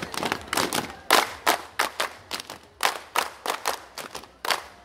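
A large group of silat dancers clapping and slapping in unison: sharp claps in an uneven rhythm of about three or four a second, growing weaker near the end.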